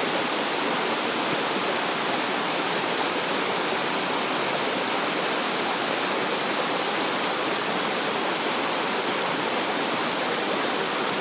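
Small waterfall running steadily: water falling and splashing into its pool, an even rushing noise with no breaks.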